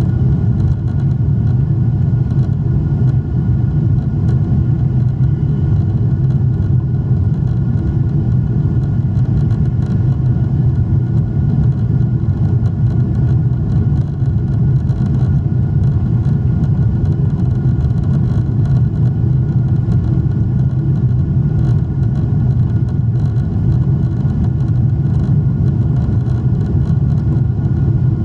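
Steady cabin roar of a Boeing 777-300 climbing after takeoff, heard inside the cabin: a deep, even engine and airflow rumble with faint steady whining tones above it.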